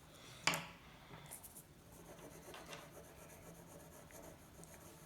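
Coloured pencil strokes scratching softly on paper while colouring and shading, with a sharp tap about half a second in.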